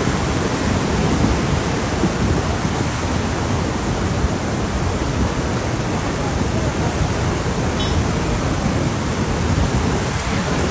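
Muddy floodwater rushing past in a fast, churning torrent: a steady, loud wash of water noise, heaviest in the low end.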